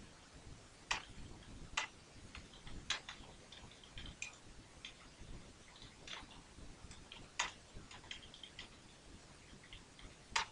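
Typing on a computer keyboard: irregular, quick keystroke clicks, a few of them much louder than the rest.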